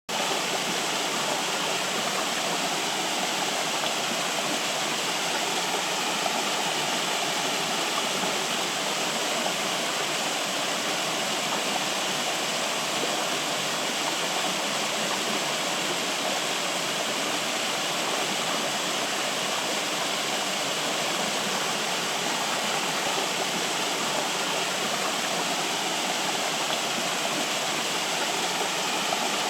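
Flowing water running steadily, an even rushing noise with no breaks.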